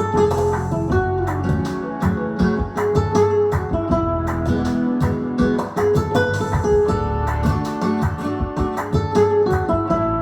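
Guitar-led music with a strong bass line, played back through an audio system.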